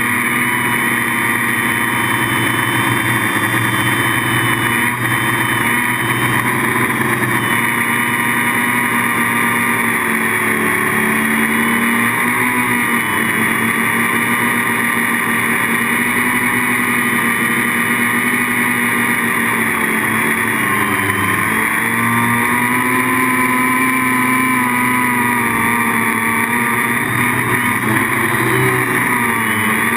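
H-frame quadcopter's electric motors and propellers whining steadily in flight, with the pitch drifting up and down as the throttle changes.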